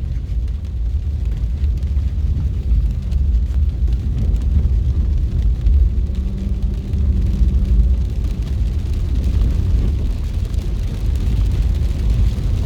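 Steady low rumble of a car's engine and tyres heard from inside the cabin, with the car crawling slowly over a wet, potholed road.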